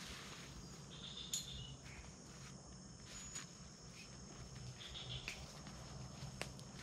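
Night insects, crickets among them, keep up a steady high drone. Short chirping calls rise over it twice, about a second in and near five seconds. A few scattered soft clicks and crunches come from footsteps in leaf litter.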